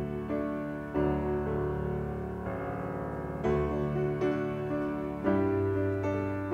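Soft solo piano background music, slow chords struck about once a second.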